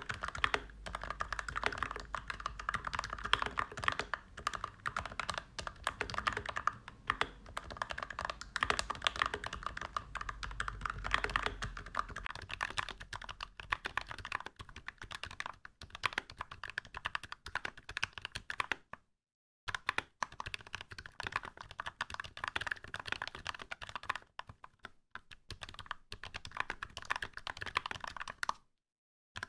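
Fast, continuous typing on a 65% mechanical keyboard fitted with KK Light Wave V2 linear switches lubed with 106 oil, with an aluminium plate and ABS keycaps; it makes a steady stream of key clacks. For the first half it is picked up by a phone lying on the same surface, with a low hum beneath the clacks. From about halfway it is heard through a recorder above the board, and the typing drops out briefly twice.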